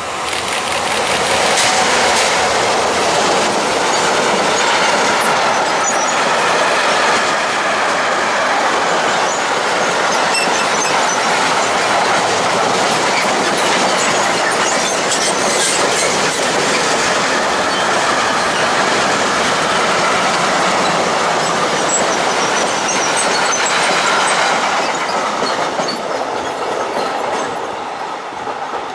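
Mixed freight train passing at speed behind a Class 186 electric locomotive (Bombardier TRAXX): a steady, loud rush and rumble of wagon wheels on rail with clicking over the joints. It swells in the first couple of seconds as the locomotive comes by and eases off near the end as the last wagons pass.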